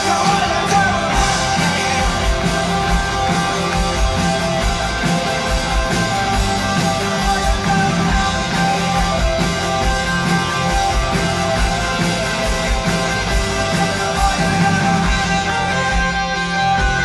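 Live rock band playing through an arena sound system: electric guitars over a steady beat.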